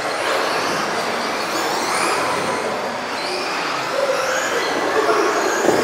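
Several electric RC off-road cars racing together, their motors whining in overlapping tones that rise and fall in pitch as they accelerate and brake around the track.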